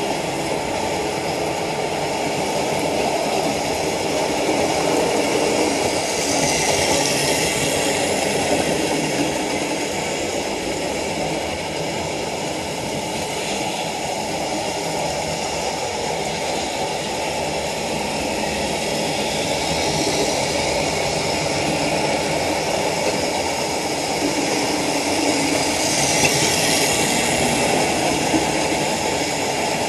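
Hornby Dublo OO-gauge model diesel trains running on the layout's track: a steady mechanical running noise of model locomotive motors and wheels, swelling twice, about a quarter of the way in and near the end, as trains pass close.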